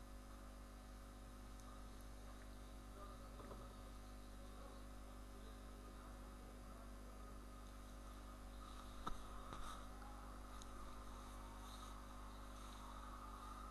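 Faint, steady electrical mains hum in the recording, with a couple of faint short clicks about nine seconds in.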